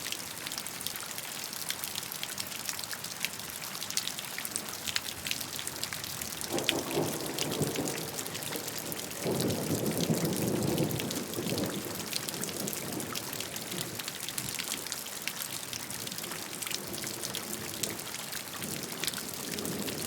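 Steady rainfall, a constant hiss of rain with many individual drops tapping. About six and a half seconds in, a deeper rumbling swell rises over the rain, and a second, louder one follows around nine to twelve seconds in before it settles back to rain alone.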